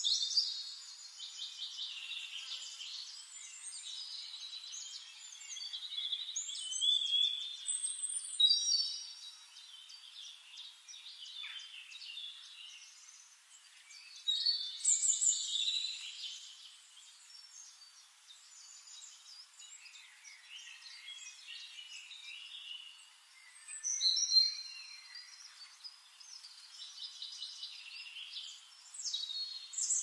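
Splendid fairy-wren singing: repeated bursts of high, rapid trilling song with quieter gaps between, loudest about 8, 15 and 24 seconds in.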